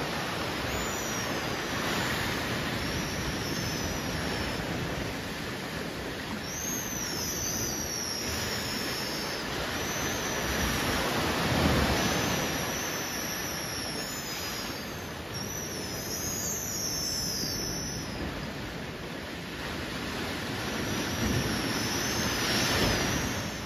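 Steady surf and wind noise on a beach, with small birds repeatedly giving short, high whistled calls that arch up and fall away.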